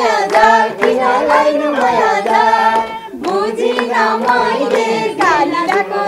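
Nepali dohori folk singing: a voice sings a melodic verse line, with hand clapping along.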